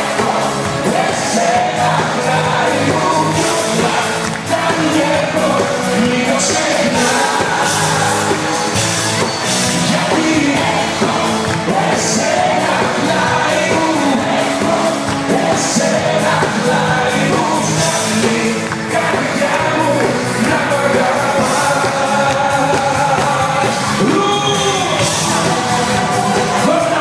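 Live band music with a singer's voice carried over it and a steady drum beat.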